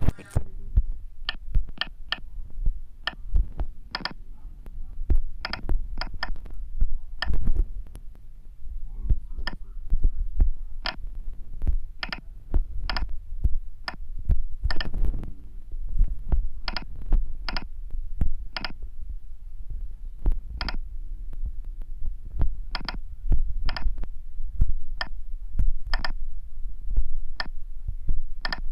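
Sharp key-press clicks as G-code is typed on a phone's on-screen keypad, coming irregularly at about one a second over a steady low rumble.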